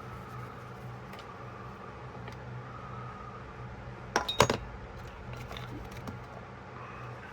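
A short, quick cluster of clinks about four seconds in, as small hard objects are handled on the desk, over a steady background hum.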